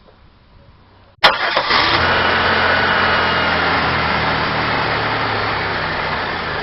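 Supercharged 3.8 L V6 (L67 3800 Series II) of a 1999 Buick Regal GS starting from cold. It catches abruptly about a second in with a sharp click, then runs at a steady, slightly easing idle. The idle is rough from vacuum leaks at hardened lower injector O-rings and a leaking throttle body gasket.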